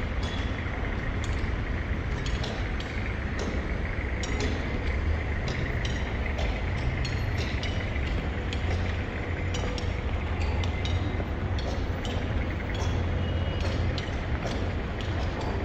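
City street ambience: a steady rumble of traffic, with frequent small clicks and clinks throughout.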